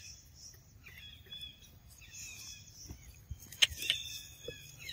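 Wild birds calling faintly in short repeated chirps, over a high pulsing hiss, with two sharp clicks about three and a half seconds in.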